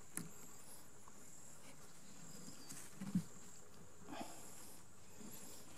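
Rope being wrapped around wooden poles for a tripod lashing: a few soft rubs and knocks, the loudest about three seconds in. Behind it runs a faint, steady, high-pitched insect drone.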